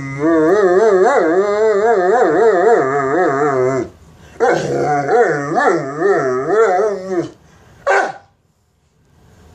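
Mastiff begging for food with long, wavering howling moans: two drawn-out calls, of about four and three seconds, then a short one near the end.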